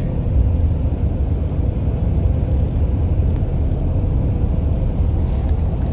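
Steady low rumble of road and engine noise inside a moving vehicle's cabin while driving on a highway.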